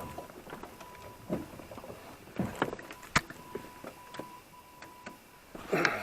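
Irregular knocks and bumps of someone moving about and handling gear in a boat, with one sharp click about three seconds in and a louder knock near the end. A faint steady high tone comes and goes underneath.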